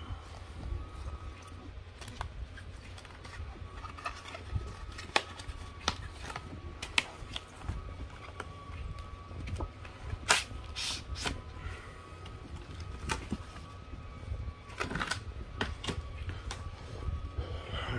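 Cardboard box and packaging handled with gloved hands: scattered taps, clicks and knocks, the sharpest about five, seven and ten seconds in, over a steady low hum.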